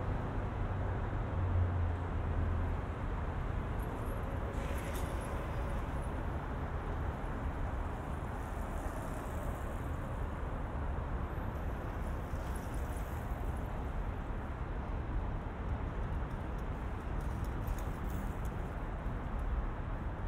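Steady city traffic rumble from passing cars, with a louder low engine hum for a couple of seconds near the start.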